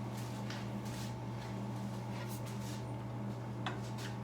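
A few light clicks and handling noises as a small part is turned and fitted by hand, over a steady background hum.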